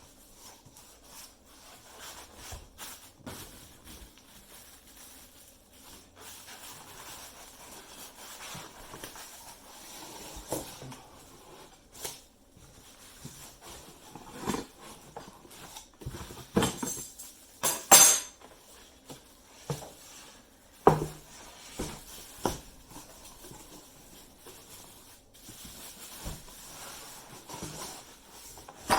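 Packaging being handled and removed while a wood lathe is unboxed: scattered knocks, clunks and rustles, with a louder scraping, hissy clatter about two-thirds of the way through.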